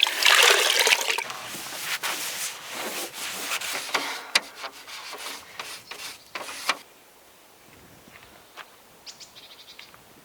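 Washing a van: a rush of water, then irregular rubbing and scrubbing strokes on the van's body that stop about seven seconds in, leaving only faint clicks.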